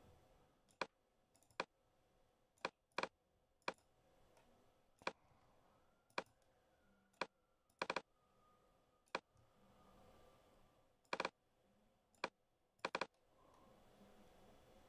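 Computer mouse clicking: about a dozen sharp, separate clicks at irregular intervals, several of them quick double-clicks, as notes are entered one at a time in a MIDI note editor.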